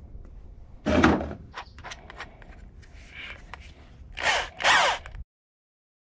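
An electric drill driving out trim screws, its motor running in two short bursts near the end with the pitch sliding as it speeds up and slows. A loud knock comes about a second in, with small clicks and handling sounds between.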